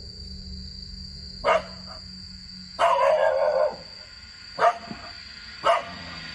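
A dog barking agitatedly. There is a single bark about a second and a half in, a longer call lasting almost a second near the middle, then two more single barks towards the end.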